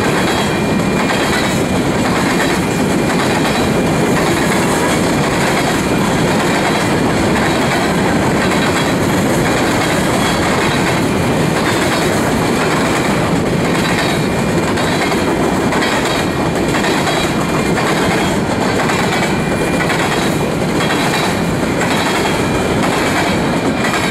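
Covered grain hopper cars of a freight train rolling past: a steady rumble of steel wheels on rail with clickety-clack over the rail joints and a faint steady high whine above it.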